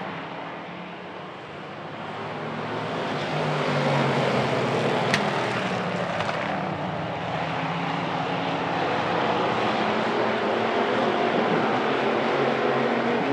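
A pack of hobby stock race cars' engines running hard together on the oval. They swell louder over the first few seconds as the field takes the green flag, then hold steady at full throttle. There is a single sharp click about five seconds in.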